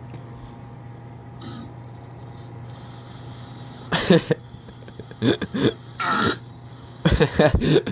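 A steady low hum, then from about four seconds in four short bursts of a person's voice making sounds that are not words.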